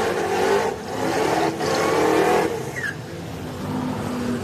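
Drag-racing SUV doing a burnout: the engine revs high while the rear tyres spin and hiss. The sound dips briefly twice. About three seconds in it drops to a lower, steadier engine note.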